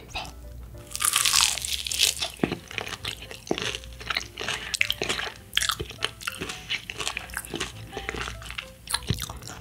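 Close-up crunching of crispy fried chicken being eaten: a loud crunchy bite about a second in, then repeated crisp crunches as the breaded coating is chewed.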